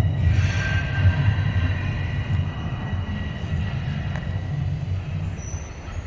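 Toronto Rocket subway train pulling out of the station, a low rumble that fades steadily as it leaves.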